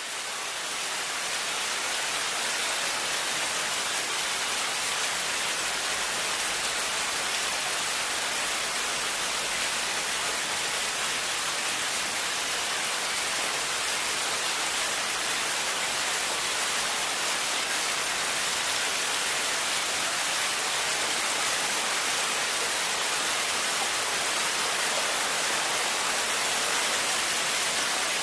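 Heavy rain falling steadily, an even dense hiss with no thunder, fading up over the first couple of seconds.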